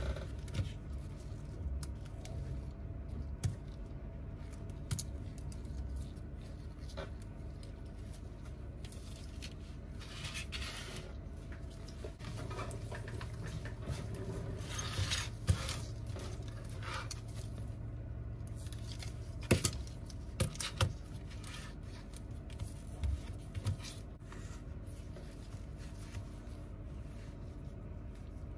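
Small hand tools working on an iPhone 8 Plus during repair: scattered light clicks and taps, a few short scraping passes in the middle, and a couple of sharper clicks about two-thirds of the way in, over a steady low hum.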